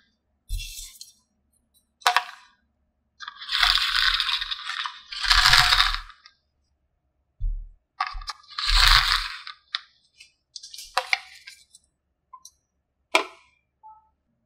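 Small plastic toy pieces and packaging being handled: several short bursts of rustling and clattering, with a few sharp clicks.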